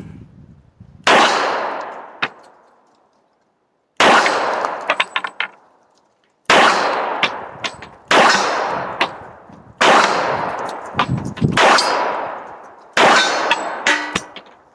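Smith & Wesson Performance Center 1911 .45 ACP pistol fired seven times at a slow, uneven pace, each loud shot followed by a long echoing decay, with small clinks after several shots.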